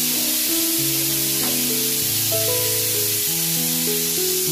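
Loud steady hiss from the cooking on the gas stove, which cuts off suddenly at the very end, under background music.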